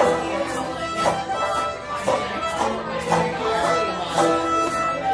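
Acoustic folk trio playing an instrumental passage: bowed fiddle melody over picked banjo and strummed acoustic guitar, with a steady beat.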